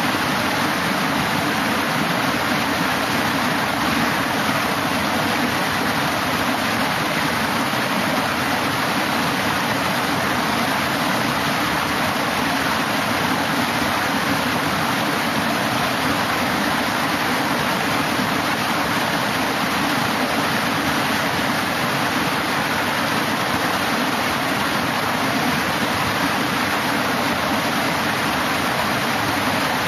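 Water pouring and splashing down the stepped pools of a concrete fish ladder: a steady, loud rush that does not change.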